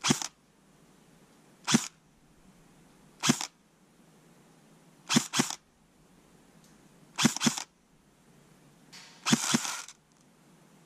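King Arms Black Rain Ordnance M4-style airsoft electric gun (AEG) firing single shots of 0.20 g BBs downrange. About eight sharp cracks come a second or two apart, two of them in quick pairs.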